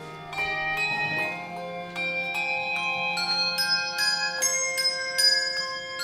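Handbell choir playing: bells struck in succession and in chords, each note ringing on under the next.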